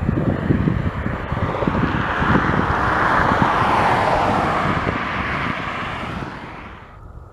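Jet engines of a taxiing Boeing 787-8 (Rolls-Royce Trent 1000) giving a broad hiss that swells to a peak midway, drops a little in pitch and fades, cut off sharply near the end. Gusty wind buffets the microphone throughout.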